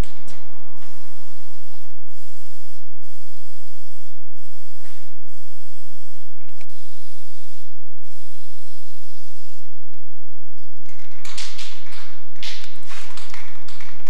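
Aerosol spray-paint can hissing in several long sprays with short breaks between them, louder and choppier near the end.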